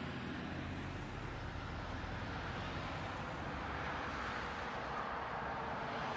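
Steady low rumble of a car's engine and road noise picked up by a dashcam inside the car as it creeps along in city traffic at about 15 km/h; no impact or braking event.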